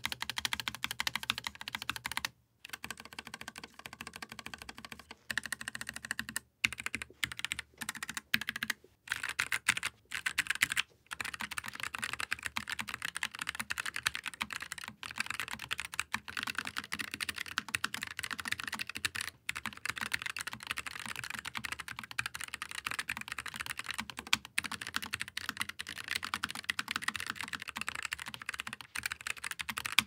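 Typing on a Keychron K3 Max 75% low-profile mechanical keyboard with Gateron Low Profile 2.0 Brown switches and double-shot PBT keycaps: a steady run of key clacks, broken by a few brief pauses.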